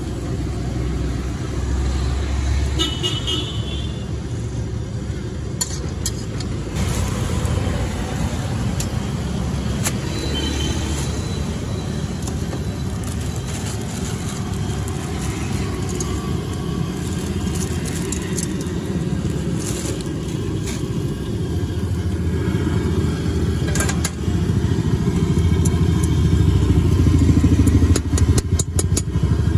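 Street traffic rumbling steadily with a couple of short horn toots, and a steel ladle clinking against a steel kadai near the end.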